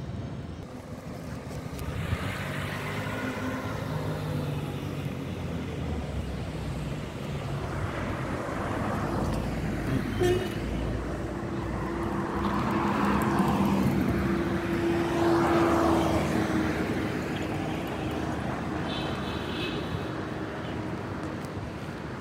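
Street traffic: several vehicles drive past, their engine and tyre noise swelling and fading, with a steady engine hum beneath for several seconds in the middle.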